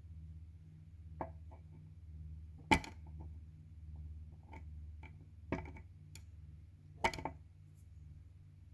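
Sharp clicks and taps from handling and prodding parts on a car amplifier's circuit board while checking for cracked, loose solder joints; four main knocks, the loudest about three seconds in, over a steady low hum.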